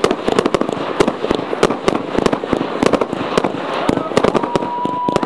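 Fireworks firing in quick succession: a dense run of sharp bangs, several a second, over a continuous crackle as shots go up and break overhead. A steady high whistle-like tone sets in near the end.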